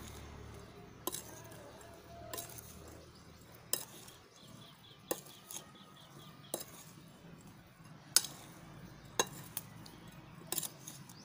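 Steel slotted spoon stirring cut lemon pieces coated in spices and jaggery in a bowl for lemon pickle, clinking against the bowl about nine times at uneven intervals of roughly a second.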